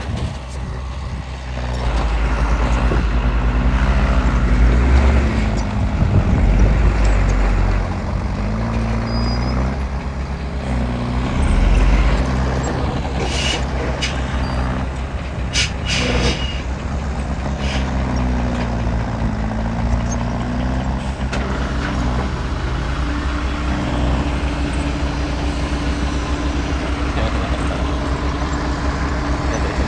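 Heavy diesel earthmoving machinery working, its engine revving up and down several times under load. A few sharp clanks come about halfway through, then the engine settles to a steadier run.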